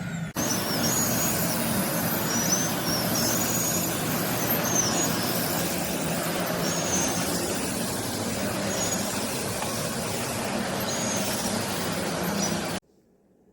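Aspiron 1600 W bagless canister vacuum cleaner running with a steady rushing noise, which cuts off abruptly near the end.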